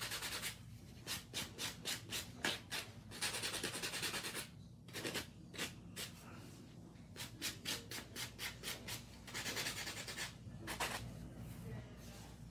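Nail buffer block rubbed in quick back-and-forth strokes over acrylic nails, about three strokes a second, with a few short pauses.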